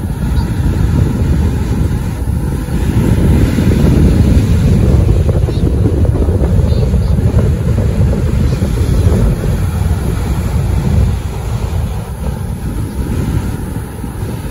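Wind buffeting the microphone over ocean surf breaking on the beach, a heavy low rumble that swells through the middle and eases near the end.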